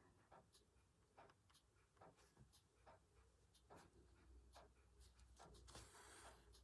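Near silence with faint scattered clicks and soft rustles from hand embroidery: a needle and thread passing through fabric, with one longer soft rustle near the end.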